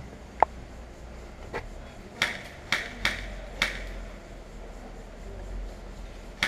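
A series of six sharp clicks and snaps over about three seconds, the first the loudest with a brief metallic ring.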